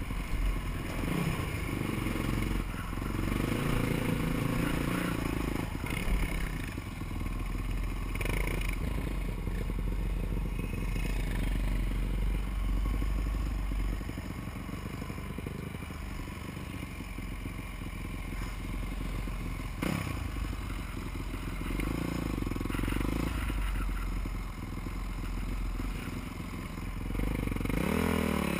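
Honda supermoto motorcycle engine running as it is ridden, its pitch rising and falling with the throttle and climbing in quick revs near the end, with wind buffeting the helmet-mounted microphone. A couple of sharp knocks cut through.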